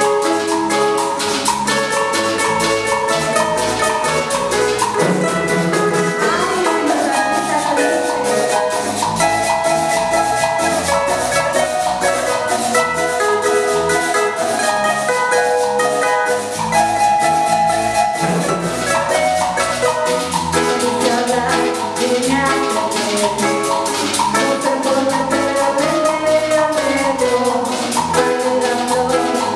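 A merengue band playing live: guitars and a cuatro over electric bass and timbales, with the steady scrape of a metal güira keeping the rhythm.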